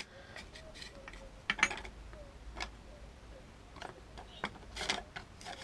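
Irregular light clicks and knocks, about a dozen, from moulds and freshly cast pewter pieces being handled.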